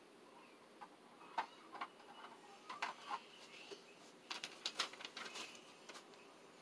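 Light plastic clicks and taps from a ring light's colour filter being handled and fitted onto the ring, coming at irregular moments, with a quick run of clicks a little past the middle.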